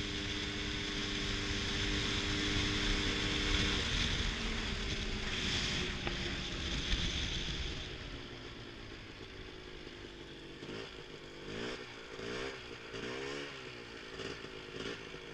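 Polaris Scrambler ATV engine running under way at a steady speed. After about four seconds the engine note drops. Near the end it rises and falls several times in quick succession as the throttle is worked.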